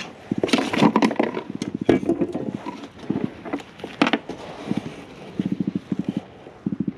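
Black drum drumming: short, rapid trains of low pulses repeated every second or so, with handling and splashing noises in the first couple of seconds.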